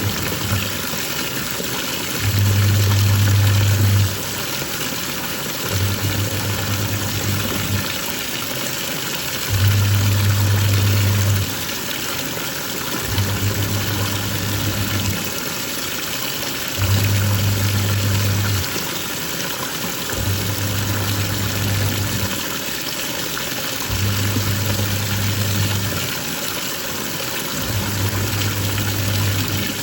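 Twin-tub washing machine in its wash cycle: water sloshing steadily while the pulsator motor hums in runs of about two seconds with short pauses between, the on-off rhythm of the pulsator reversing direction, about eight times.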